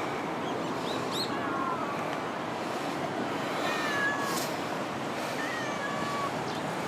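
Cats, likely kittens of the family, meowing several times in short, thin, wavering calls over a steady rushing background noise.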